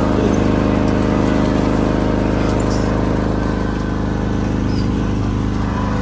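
Small engine running steadily at an even speed, close by.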